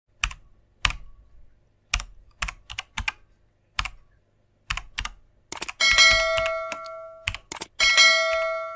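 Computer keyboard typing: irregular keystroke clicks. About six seconds in, two bell-like chimes ring, about two seconds apart, each fading over about a second and a half.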